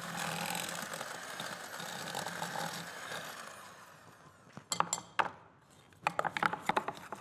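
Electric hand mixer running, its twin beaters creaming butter and sugar in a glass bowl: a steady whir that fades out about four seconds in. A few sharp clicks and knocks follow, then a run of clinks near the end.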